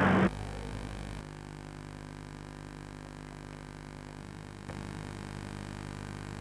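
Steady electrical hum with faint hiss and no other sound, the background noise of an old video tape recording. It drops slightly about a second in and rises a little near five seconds.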